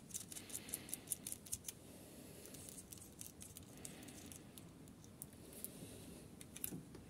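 Faint clicks and taps of a spare lawn-tractor starter solenoid and its cable ring terminals being handled, the metal lugs knocking against the terminal studs. The clicks come in quick clusters, first in the opening two seconds and again near the end.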